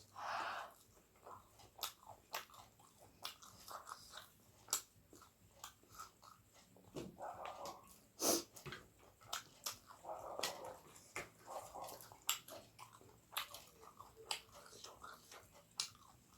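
Close-miked mouth sounds of a person eating: irregular wet chewing clicks and lip smacks, with a few short, louder smacks scattered through.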